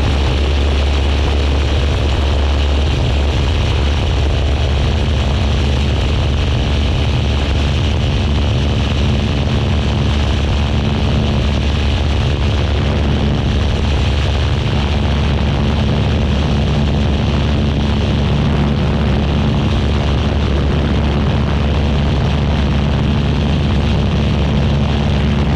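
Tecnam P2002's Rotax 912 engine and propeller running at full power, a loud steady drone with wind rushing past, through the takeoff roll and climb-out of a touch-and-go.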